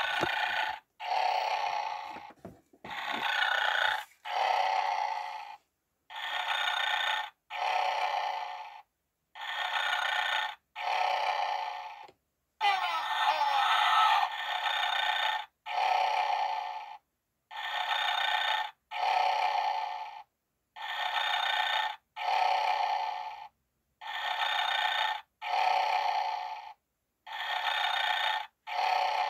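Snoring Santa Christmas ornament playing its recorded snore through a tiny speaker. It plays pairs of thin, hissy snore sounds, breathing in then out, about every three and a half seconds, with one longer stretch near the middle.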